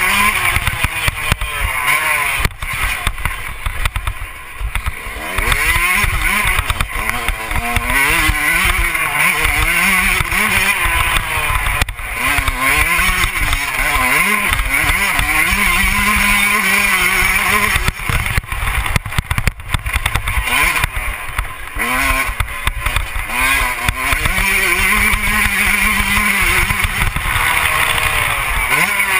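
Motocross dirt bike engine heard from a camera mounted on the bike, its revs rising and falling over and over as the rider accelerates, shifts and shuts the throttle along the track.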